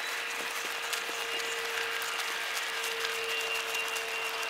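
Footsteps crunching and crackling through dry grass as people walk across a field, with a faint steady hum underneath.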